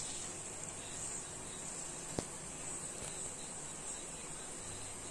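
Jalebi batter frying in hot oil: a steady, fairly faint sizzle, with a single sharp click about two seconds in.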